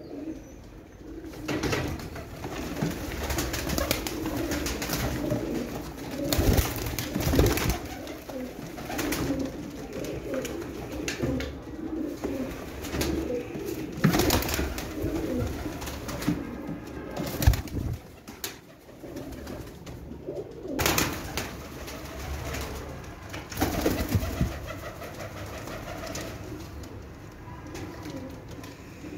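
Domestic pigeons cooing continuously in a group, a low wavering burble, with several short sharp knocks or flaps scattered through it.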